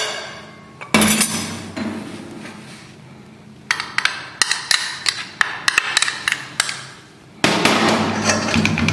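Metal spoon working flour through a stainless-steel mesh sieve, sieving flour with baking powder. Its tip taps and scrapes against the mesh and rim in runs of quick clicking knocks, with a lull about two to three seconds in and a louder run near the end.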